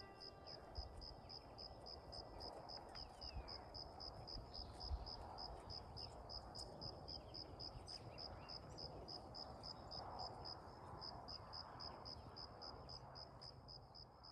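A cricket chirping faintly and steadily, about four even chirps a second, over soft outdoor evening hush.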